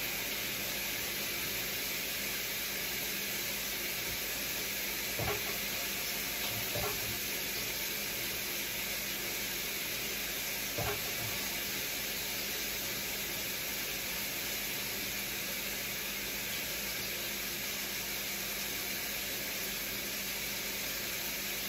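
Chicken frying in a skillet on the stove, a steady sizzle, with a few faint knocks near the start and middle.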